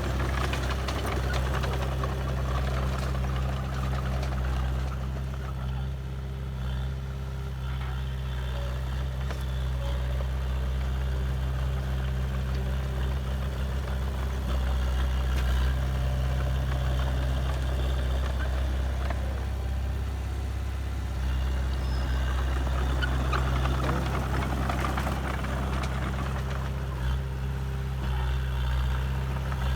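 Diesel engine of heavy earthmoving machinery running steadily at low revs, an even low hum, with a small shift in its pitch about two-thirds of the way through.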